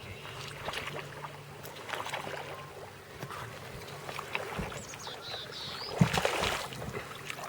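Water splashing and knocks in a small boat as a hooked bass is fought and landed. The loudest splash comes about six seconds in.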